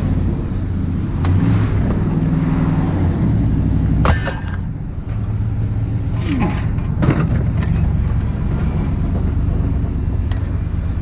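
Vehicle engine running steadily with a low hum, with a few sharp metal clanks and a short falling squeak about four and about six to seven seconds in.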